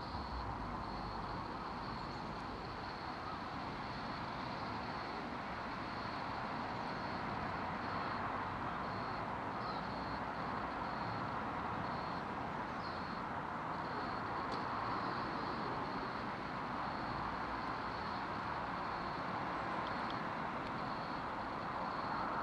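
Steady outdoor ambience of an even hiss-like background noise, with a thin high-pitched tone that keeps breaking off and coming back.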